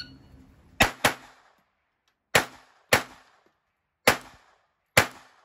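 Six handgun shots fired in three pairs: the first pair very quick, the next two pairs more widely spaced. Each shot is sharp, with a short echo.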